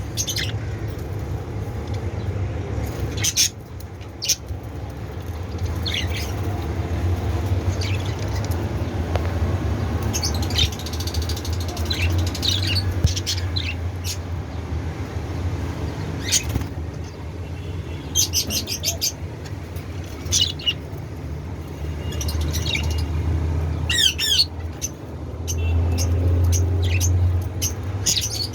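A colony of budgerigars chirping and chattering in short, scattered calls, some warbling, with a steady low rumble underneath.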